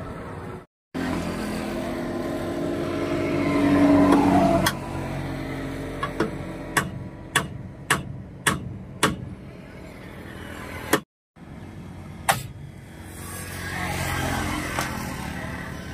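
Hammer blows on the seized front wheel and brake assembly of a Hino truck, done to free the jammed brake adjuster: six sharp metallic strikes about half a second apart, then two more a little later. Before them a passing road vehicle grows louder and then drops away.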